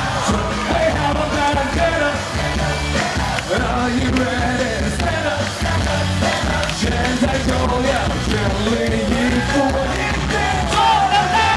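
Live pop-rock band playing loudly through a concert PA, with drums, bass and a wavering sung or lead melody over it; long held notes near the end.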